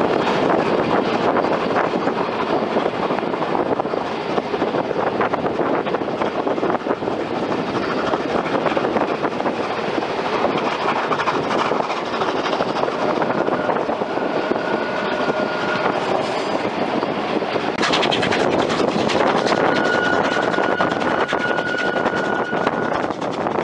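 Passenger train running along, heard from an open coach window: the steady rumble and clatter of wheels on the rails, with a faint thin high squeal that comes and goes in the second half.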